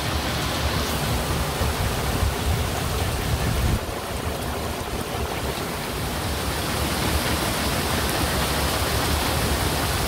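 Heavy tropical downpour pelting the swamp water and an open boat: a steady hiss of rain with a low rumble underneath that eases slightly about four seconds in.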